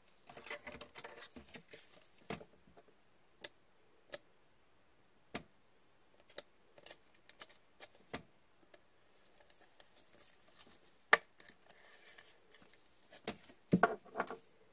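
Rustling, then scattered sharp clicks and taps as a trading card is handled with gloved hands and slid into a clear rigid plastic toploader. The loudest click comes about three-quarters of the way through, and a few quick taps come near the end as the holder is set down.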